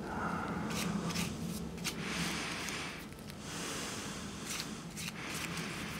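Bristle paintbrush scrubbing over an acetone-wet 3D-printed PLA model: a soft swishing in repeated strokes, with a few light clicks.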